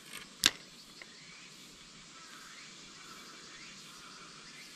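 A single sharp click from the spinning rod and reel just after a cast, about half a second in, over a faint steady outdoor hiss with faint chirps later on.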